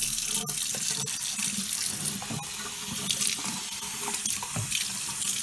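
Kitchen faucet running steadily into the sink from a newly fitted pull-out spray head, a continuous splashing hiss.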